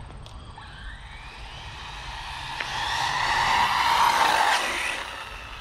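Electric RC truggy with a Castle Creations 2200KV brushless motor whining as it speeds past on asphalt. The whine rises in pitch as it comes closer, is loudest about four seconds in, then falls away.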